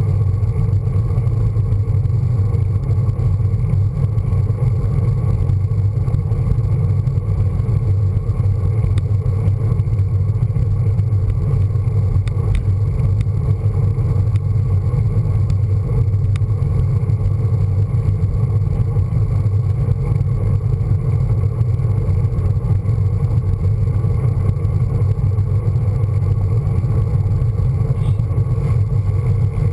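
Steady wind rush and road rumble picked up by a handlebar-mounted camera on a road bike riding at speed.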